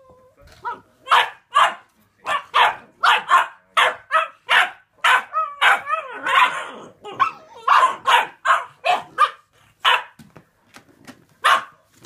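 Bullmastiff puppy barking over and over during play-fighting: short, loud barks about two a second, with one longer bark about six seconds in.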